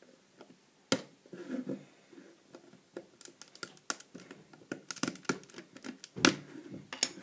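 Plastic LEGO bricks clicking and knocking as hands work the top off a small LEGO candy machine, in a run of sharp irregular clicks with the loudest knock about six seconds in.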